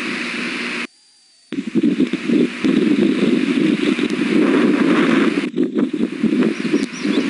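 Osprey chicks food-begging over a loud, steady rushing noise on the nest camera's microphone. The sound cuts out for about half a second near one second in.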